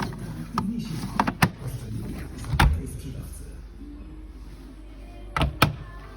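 A handful of short knocks and clunks, the loudest a pair near the end, over a steady low hum.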